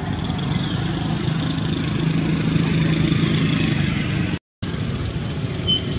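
A motor vehicle engine running steadily, a low hum that grows somewhat louder around the middle. The sound cuts out completely for a moment about four and a half seconds in.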